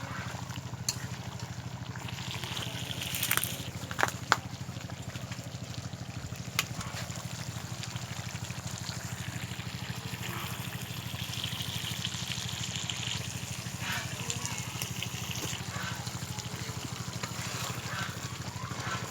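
Chicken and potato curry simmering and bubbling in a pot on a clay wood-fired stove, steady throughout. A few sharp clicks come about three to seven seconds in.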